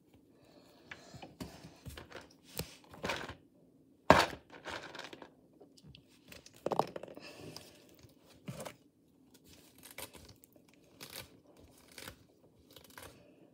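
A brush being pulled through a doll's snarly synthetic hair: a series of irregular scratchy strokes, the loudest about four seconds in.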